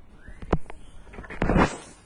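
A sharp knock, then a louder short scraping clatter, from hands handling the rear brake caliper of a BMW E39 as it is fitted back over the new pads.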